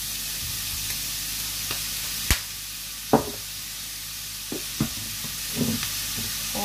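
Mushrooms and shredded carrot frying in hot oil in a non-stick frying pan, a steady sizzle just after fish sauce has been poured in. A sharp click a little over two seconds in and a few softer knocks sit over it.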